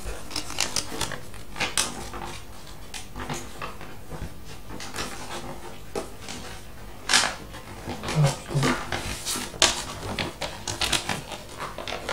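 Crinkling and rustling of a large folded paper game mat being unfolded and handled, with sharp crackles throughout and the loudest ones a little past the middle.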